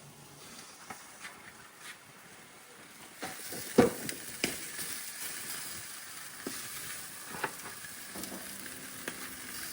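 Meat sizzling on a barbecue grill, starting about three seconds in, with a few sharp pops and clicks, the loudest just after it starts.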